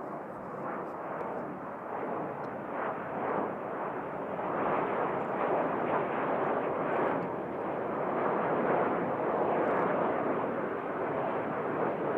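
Jet noise from a formation of four BAE Hawk jet trainers flying overhead: a continuous rushing sound, with their Rolls-Royce Turbomeca Adour turbofans, that grows louder through the first two-thirds and then eases slightly.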